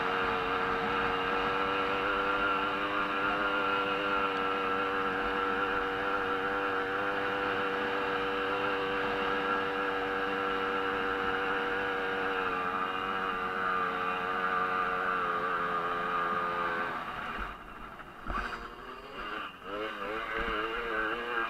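Jawa 50 single-cylinder two-stroke racing moped engine held at high, steady revs under full throttle, heard onboard. About 17 seconds in the throttle comes off and the revs drop, then rise and fall unevenly through a bend.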